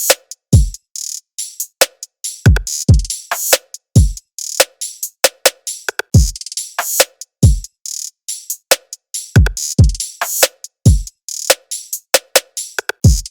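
Background electronic music with a drum-machine beat: deep kick drums that drop in pitch, over crisp hi-hat and snare hits.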